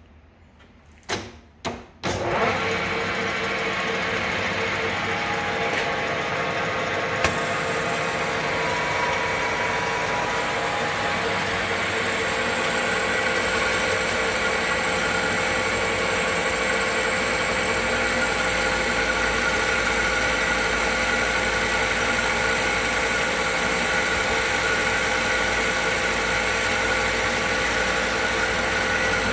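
1960 LeBlond Regal gear-head lathe starting up: two short clunks, then from about two seconds in the motor and headstock gears run at a steady speed with a constant gear whine.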